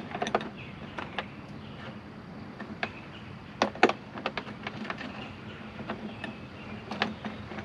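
Light clicks and knocks of an AC refrigerant line being handled and fitted back onto the condenser, scattered and irregular, the two loudest close together a little past the middle, over a faint steady low hum.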